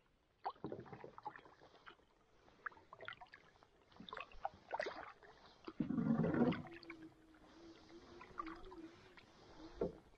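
Canoe paddling: paddle strokes splashing and gurgling in the water, with dripping and light knocks against the hull. A louder splash comes about six seconds in, followed by a faint steady low hum for about three seconds.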